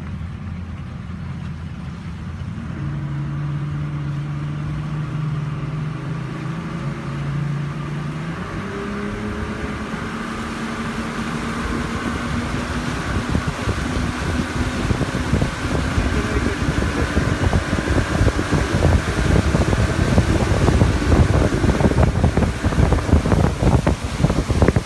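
Speedboat engine running steadily, its pitch stepping up about a third of the way in; from the middle on, wind buffeting on the microphone and rushing water grow louder over the engine.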